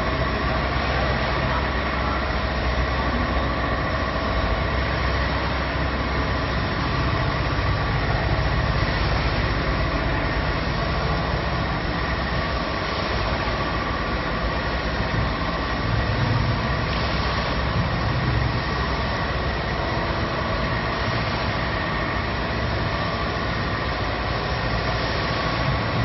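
Wafer production line machinery running steadily: a constant mechanical din with a few steady tones held above it.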